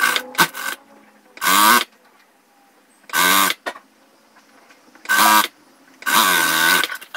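Industrial straight-stitch sewing machine stitching fabric in four short bursts, its motor whine rising as it speeds up and falling as it stops each time, with a few light clicks at the start.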